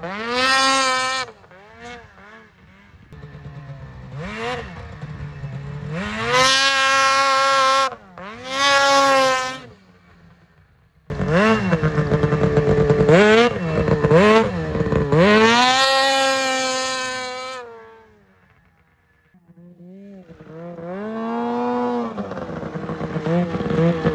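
Snowmobile engine revving hard in repeated throttle bursts as the sled pulls wheelies. About seven bursts each rise sharply in pitch and fall away. Near the end the engine drops almost to nothing, then picks up and climbs again.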